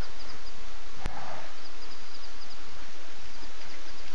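Night ambience at a waterhole through an outdoor microphone: a steady hiss with faint runs of short, high-pitched chirps, and a single sharp click about a second in.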